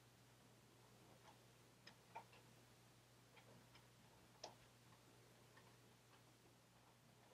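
Near silence: room tone with a low steady hum and a handful of faint, irregular small ticks, the loudest about two and four and a half seconds in.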